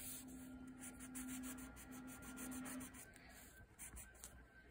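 Faint rubbing and scratching of a black crayon colouring on paper, with a steady low hum for the first three seconds that breaks off briefly partway through and a few light taps near the end.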